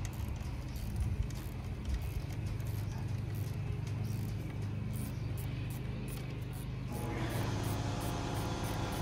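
A steady low hum like a running engine, with faint, evenly spaced clicking. About seven seconds in, a cluster of steady higher tones joins it.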